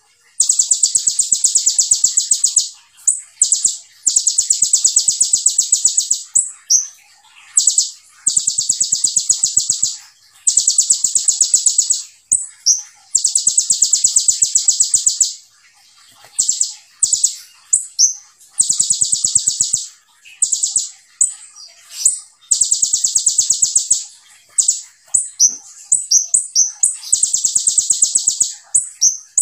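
Kolibri ninja sunbird singing in full song: about seven long, high-pitched rapid-fire trills of two to three seconds each, with short chirps in the gaps between them.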